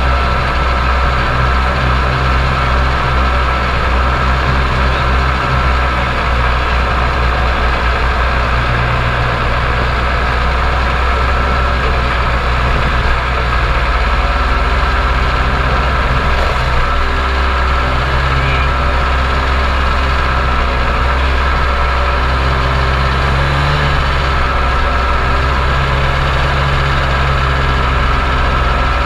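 Snowmobile engine running at a steady pitch while the machine travels along, heard up close from the handlebars.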